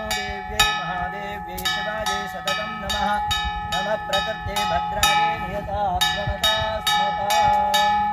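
Temple bells struck over and over, two to three sharp ringing strikes a second whose metallic tones carry over one another, above a steady low hum and a wavering melodic line.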